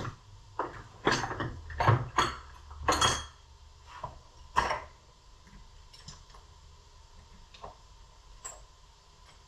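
Metal sockets and tools clinking and clattering as a hand rummages through a toolbox drawer: a run of sharp clanks over the first few seconds, then only a few light ticks.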